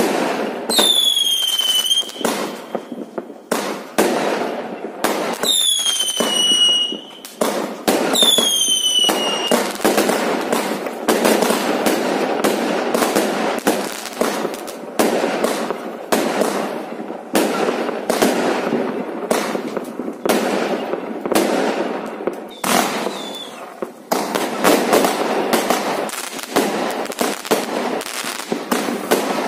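Aerial fireworks going off in quick succession. Three whistles fall in pitch in the first ten seconds, then comes a dense, continuous string of bangs and crackles, with a brief lull about three quarters of the way through.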